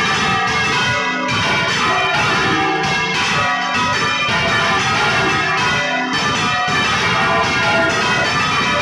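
Several large church bells swung by hand on ropes, ringing together in a continuous peal of overlapping strikes, heard from inside the bell chamber.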